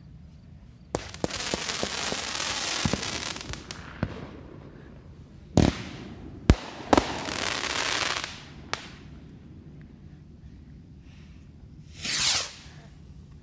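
Aerial fireworks going off: sharp bangs, each followed by a long crackling hiss of crackle-effect stars, with a few more single reports and a hiss falling in pitch near the end.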